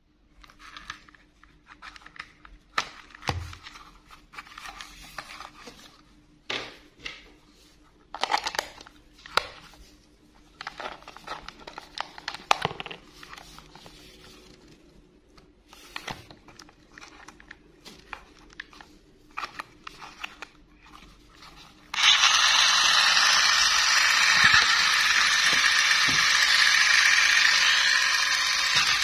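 Scattered plastic clicks, taps and rattles as a battery-powered plastic toy train is handled and its battery compartment worked. About 22 seconds in, loud music cuts in abruptly and runs on.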